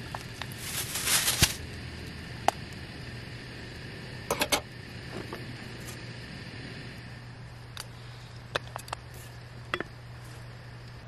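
Pork belly cooking in a small frying pan on a camping gas burner. About a second in there is a loud burst of sizzling as scissor-cut pieces drop into the hot pan. This is followed by scattered light clicks and knocks, the last as a metal lid is set on the pan near the end, over a steady low hum.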